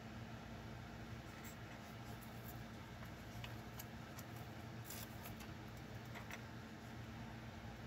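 Faint handling noises: a paper sticker sheet rustling and a few light clicks and taps as Lego pieces are handled, over a low steady hum.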